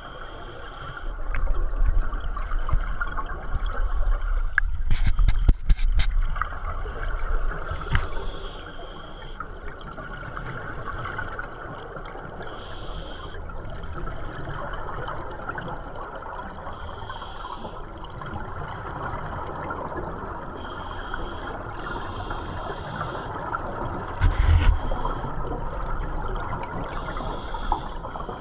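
Scuba divers breathing through their regulators, heard underwater: a bubbling rush of exhaled air comes every few seconds over a steady watery hiss. A few sharp clicks sound around five seconds in.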